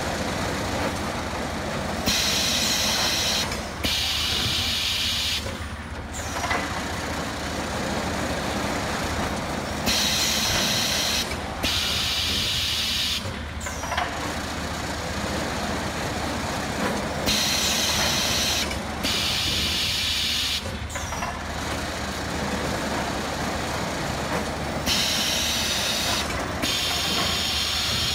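Palletizing robot at work: its pneumatic gripper lets out compressed air in back-to-back pairs of hisses, each about a second long, roughly every seven to eight seconds, once per pick-and-place cycle. Under it runs a steady low hum of factory machinery and conveyors.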